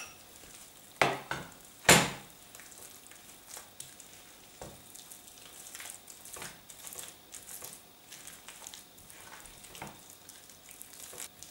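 Wooden spoon stirring beaten eggs into a wet mashed-potato, herb and calf-brain mixture in a ceramic bowl: two sharp knocks about one and two seconds in, then soft, irregular wet squelching and scraping.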